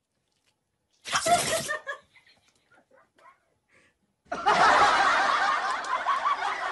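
A white dog vocalizing in drawn-out, wavering howl-like yowls: a short one about a second in, then a longer, louder one from about four seconds in.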